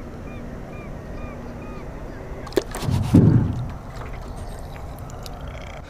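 Water sloshing and splashing at the side of a small boat as a hooked catfish thrashes alongside, with a short, louder burst of splashing about three seconds in.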